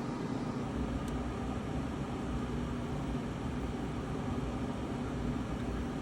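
Dehumidifier running, a steady fan-and-compressor hum working non-stop, with a faint tick about a second in.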